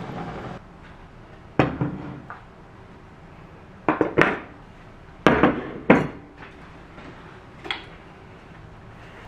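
Tableware being set down on a tabletop: six or so separate clinks and knocks of plates, bowls and utensils, irregularly spaced, some in quick pairs.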